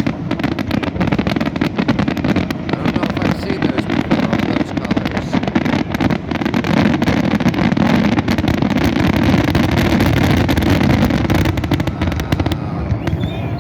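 Dense fireworks barrage: rapid bangs and crackles overlapping into a continuous loud rumble, thinning out just before the end.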